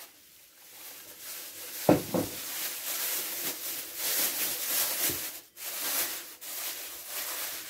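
Plastic cling film rustling and crinkling as it is handled around a ball of bread dough, with a soft thump about two seconds in and a smaller one about five seconds in as the dough is set on the stone countertop.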